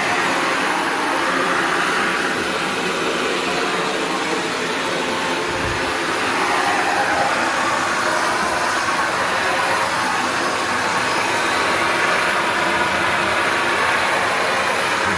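Shark NV355 upright vacuum cleaner running steadily at full suction, a rush of air with a steady motor whine of several tones, its flow through the hose sounding strong. A brief low thump about six seconds in.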